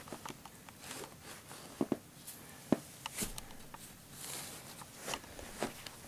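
Quiet handling noises as blocks are moved and set down on a towel: scattered light clicks, soft knocks and rustling, with a few sharper knocks about two to three seconds in.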